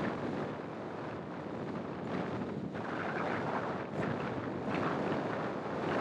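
Wind rushing and buffeting over the microphone of a camera mounted outside a moving car, with the car's road noise underneath, swelling and easing a little.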